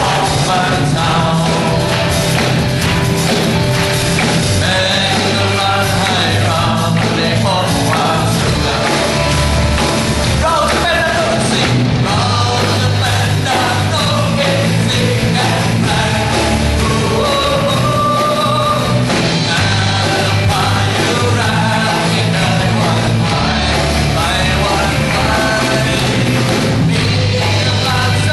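Live worship band playing with a male lead singer singing into a microphone, over a bass line that shifts notes every second or two.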